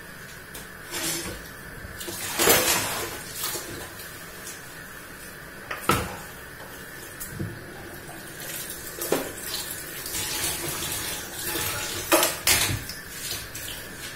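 Tap water running into a stainless steel kitchen sink while a plastic bowl is washed by hand, with several sharp knocks and clatters of dishware against the sink, the loudest about two and a half seconds in and near the end.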